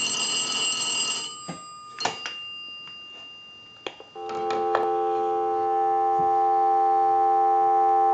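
A 233G three-slot payphone's ringer bell rings and dies away about a second in, at the end of a ring cycle. Several clicks follow as the handset is lifted off the hook switch. From about four seconds in a steady dial tone plays through the amplified pickup.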